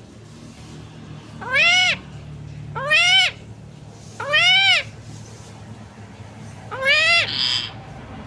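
Green parrot giving four meow-like calls, each rising then falling in pitch and lasting about half a second. Near the end the last call is followed by a short hiss.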